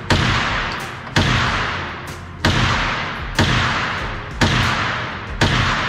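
Ruger PC9 9mm carbine fired six times at a steady pace, about one shot a second, each shot ringing out with a long echo off the walls of an indoor range.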